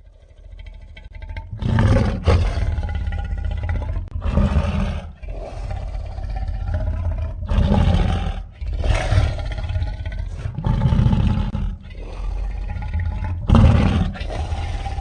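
Cartoon Tyrannosaurus rex sound effect: a string of deep roars and growls with a heavy low rumble, rising from a soft start into loud peaks every couple of seconds.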